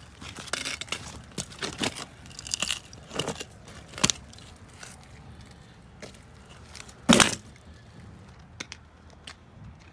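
Irregular rustling and crunching noises with scattered clicks, and one sharp knock about seven seconds in.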